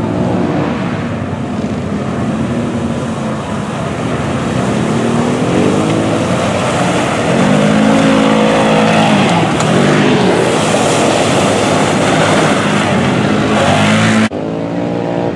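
Side-by-side UTV engines revving up and down repeatedly as the machines churn through a mud pit. The sound changes abruptly near the end to another machine.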